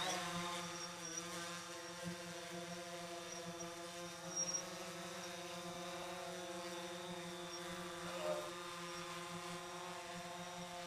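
DJI Phantom 4 quadcopter in flight, its propellers giving a steady, even-pitched buzz.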